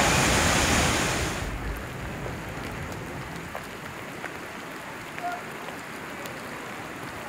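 Whitewater rapid roaring loudly, cutting off about a second and a half in. It gives way to the quieter, steady hiss of calmer river water with faint scattered ticks.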